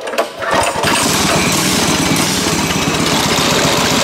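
Minibike's small engine sputtering for about a second as it is started, then catching and running loudly and steadily with an even firing beat.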